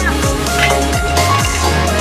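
Electronic dance music with a heavy sustained bass, a steady kick drum and busy hi-hats.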